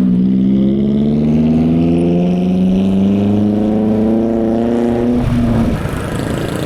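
Motorbike engine accelerating, its note climbing steadily for about five seconds before the throttle is eased and the note drops away.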